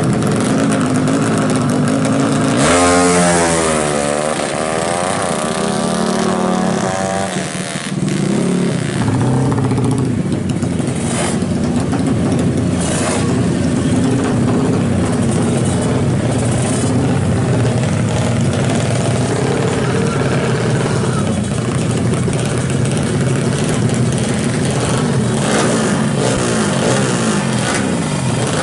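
Modified 200cc Honda drag-race motorcycle engines. A few seconds in, a bike launches and accelerates away, its engine pitch climbing and dropping back through several gear changes. After that, the next bikes' engines run and rev loudly at the start line.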